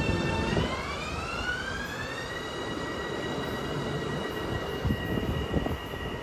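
Long Island Rail Road M7 electric train accelerating: its propulsion whine rises in pitch over about two seconds, then holds steady over the rumble of wheels on rail, with a few low thumps near the end.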